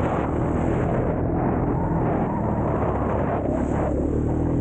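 ATV engine running at a steady pitch while riding, with a rushing noise over it.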